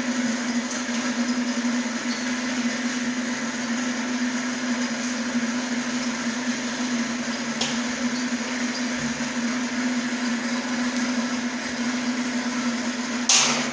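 A machine running steadily with a constant hum and a whirring noise, with a sharp knock near the end.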